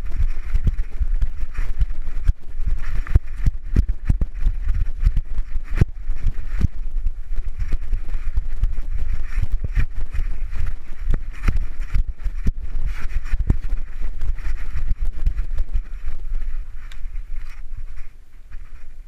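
Bumping and rubbing noise from a GoPro camera strapped to a moving dog's harness: a constant jumble of thumps and knocks that quiets near the end.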